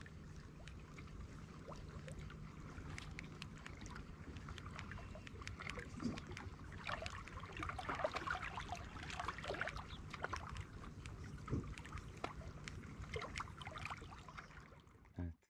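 Faint water lapping and small splashes with scattered light clicks, busiest in the middle, over a faint steady low hum. It stops abruptly near the end.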